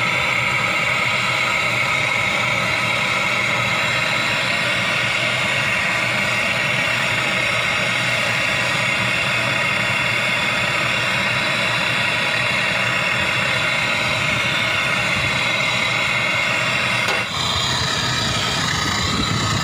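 Steady, loud machine drone, like an engine or compressor running, with several unchanging pitched tones over a low rumble. It dips briefly and shifts slightly about two seconds before the end.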